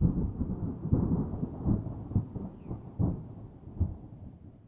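Thunder: a low rumble that starts suddenly, rolls on in several loud peaks about a second apart, and slowly fades.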